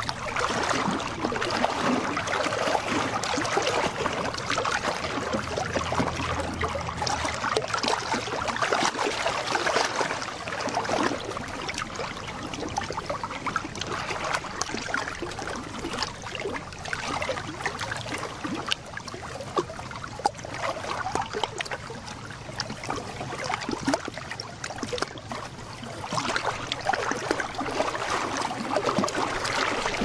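Gentle lake waves lapping and splashing against shoreline rocks: a continuous wash of small splashes that swells louder in the first ten seconds or so and again near the end.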